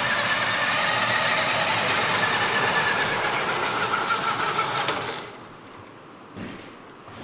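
Radio-controlled Tamiya King Hauler dump truck running, a dense mechanical noise with a faint whine, which cuts off abruptly about five seconds in. A few faint knocks follow.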